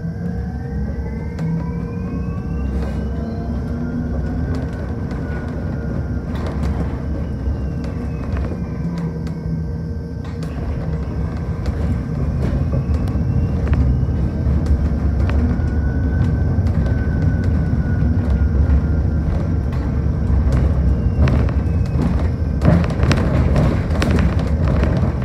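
Inside a moving electric city bus: steady road and tyre rumble with a constant hum. A faint electric-motor whine rises in pitch and falls away again twice as the bus speeds up and slows. A few rattling knocks come near the end.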